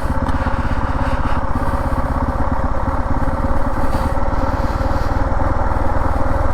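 Husqvarna 701 Enduro's single-cylinder engine running at steady low revs as the motorcycle heads down a dirt-trail descent.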